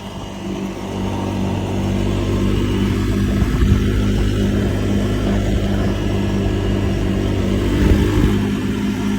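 Honda 400's engine running at a steady speed while being ridden, with a couple of small exhaust pops.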